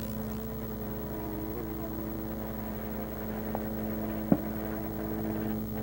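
A steady low hum with several pitched tones. A single sharp knock comes about four seconds in.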